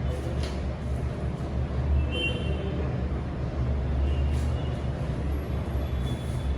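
Steady low-pitched background rumble with no speech, with a few faint brief high tones over it.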